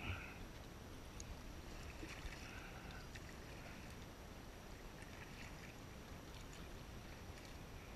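Faint kayak paddling on calm water: the double-bladed paddle dipping in and dripping, with a few soft splashes now and then.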